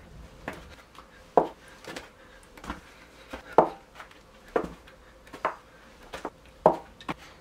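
A string of short, sharp knocks, roughly one a second. Some of them drop quickly in pitch.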